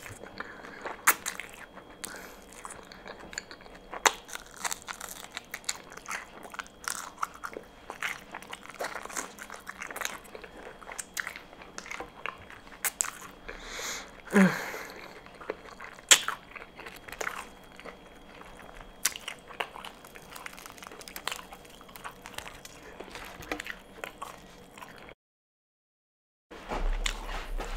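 Close-up eating sounds of crispy fried chicken: sharp crunches of the breading as it is bitten, with wet chewing between bites. The sound cuts out completely for about a second near the end.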